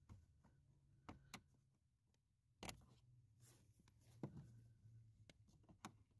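Faint scattered clicks and ticks of a flat-blade screwdriver prying plastic push-pin clips out of a plastic under-dash panel, with the sharpest click a little under 3 s in.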